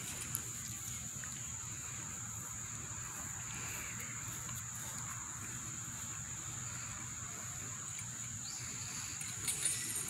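Steady outdoor ambience: a constant high-pitched insect drone over a low background rumble, with a few short knocks near the end.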